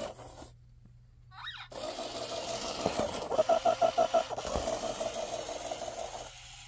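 Small electric motor of a battery-powered Zhu Zhu Aquarium toy fish whirring as it drives itself along on its plastic surfboard. It stops for about a second near the start, starts again, and has a stretch of rapid rattling pulses, about seven a second, midway before dropping away near the end.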